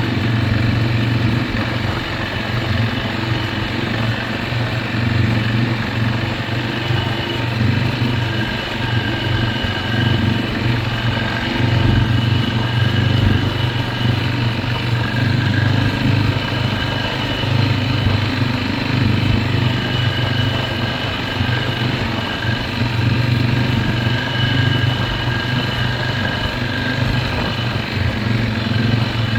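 Lawn mower engine running steadily, with a faint high whine that comes and goes.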